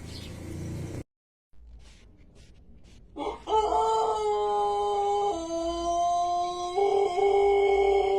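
Pelung rooster crowing: one long crow begins about three seconds in, held on steady notes that step down partway through and back up, still going at the end.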